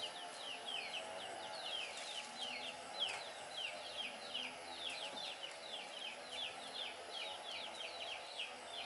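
Small birds chirping steadily, a quick run of short falling chirps, about three a second, with a faint low hum behind.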